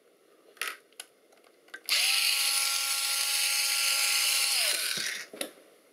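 Electric screwdriver running for about three seconds to undo a screw, with a steady whine that drops in pitch as the motor stops. A few small clicks of handling come before and after.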